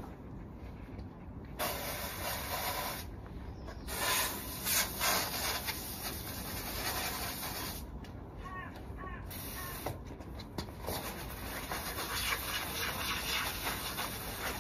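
Garden hose spray nozzle hissing in spurts that start and stop abruptly several times, water rinsing the muddy paws and legs of an Alaskan Malamute puppy.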